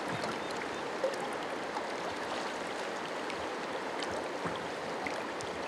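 Steady rush of river current flowing past, with a few faint taps.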